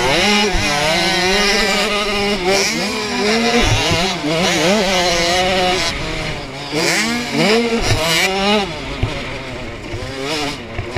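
A KTM 65 SX youth motocross bike's small two-stroke engine racing hard, its pitch revving up and falling back again and again through gear changes, jumps and corners.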